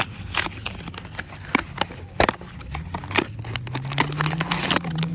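Paperboard Tokidoki blind box being torn open by hand and its inner packaging slid out: irregular crackling, tearing and clicking of cardboard and paper. A faint low hum rises slowly in pitch in the second half.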